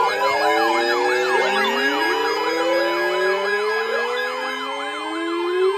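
Several emergency alert radios sounding their alarms at once: overlapping fast wailing siren tones and slowly rising whoops over steady alert tones, marking the start of a river flood advisory.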